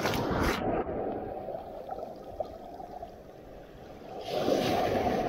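Sea surf washing onto the beach. It swells at the start, falls away, and swells again about four seconds in.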